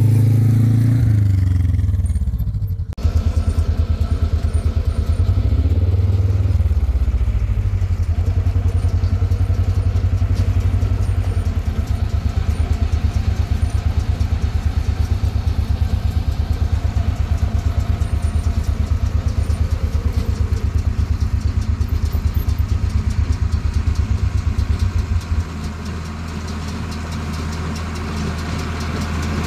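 Diesel farm tractor engine running up close with a fast, even pulse. The sound changes abruptly about three seconds in, and near the end it drops a little and steadies.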